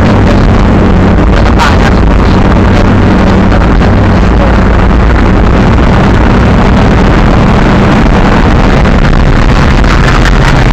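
Monster truck engine running loud and steady while the truck is driven, heard from inside the open cab.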